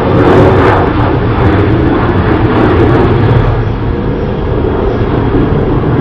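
Several outdoor tornado warning sirens sounding together for a test, a steady overlapping wail over a heavy low rumble.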